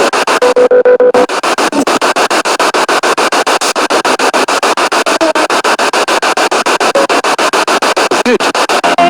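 Spirit box radio sweeping through stations: hissing static chopped into rapid pulses many times a second, with a brief steady tone from a passing station near the start.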